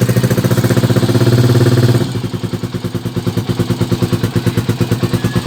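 Motorstar Cafe 400 motorcycle engine running just after catching from a hard start, a little higher and louder for about two seconds and then settling into a steady, pulsing idle.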